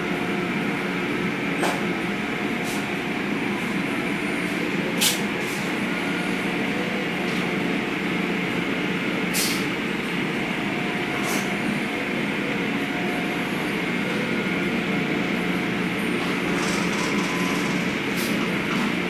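Automatic car wash tunnel running: a steady rush of high-pressure water spray and machinery noise, with a few brief hisses.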